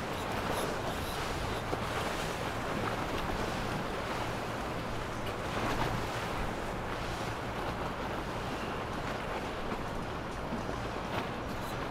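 Triple Mercury 400 outboards running on a passing Fountain center-console boat, under the steady rush and splash of water off its hull, with wind noise on the microphone.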